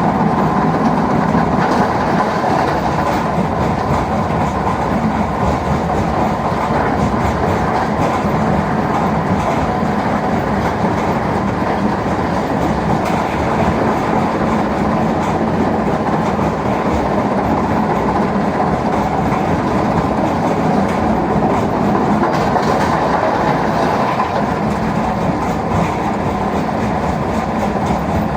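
Mobile stone crusher and excavator running steadily together: a continuous loud mechanical rumble with rattling, without a break.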